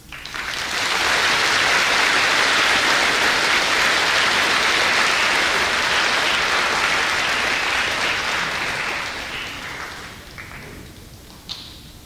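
Audience applauding. The clapping starts at once, holds steady for several seconds, and dies away about ten seconds in.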